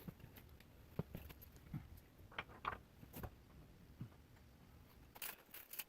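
Scattered light clicks and knocks of tools and metal hardware being handled during a truck bumper install, with a quick cluster of clicks near the end.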